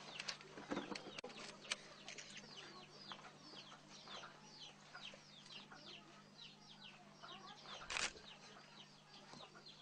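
Faint, rapid chirping of birds: many short falling chirps over a low steady hum, with a few clicks in the first two seconds and one sharp knock about eight seconds in.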